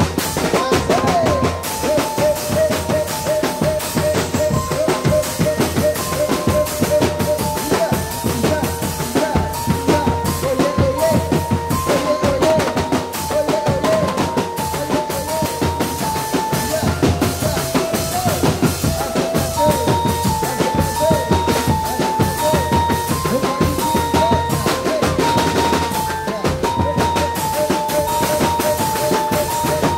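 Drumband percussion: bass drums and snare drums beating a fast, dense rhythm, with a melody of held notes stepping up and down over it.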